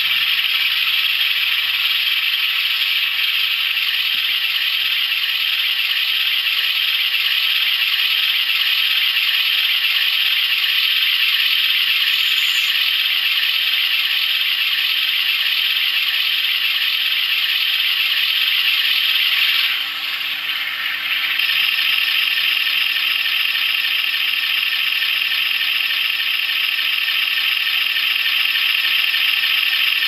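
A DCC sound decoder (ESU LokSound) in an OO gauge model diesel locomotive plays a recorded diesel engine running steadily. It comes through a small round speaker and sounds thin and tinny, with almost no bass. About two-thirds of the way through the sound briefly drops in level, then carries on.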